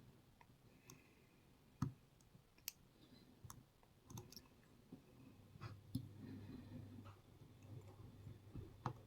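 Faint, scattered clicks of a lock pick working up through the pins of a Federal 90A padlock held under tension, a few sharp ticks a second or more apart.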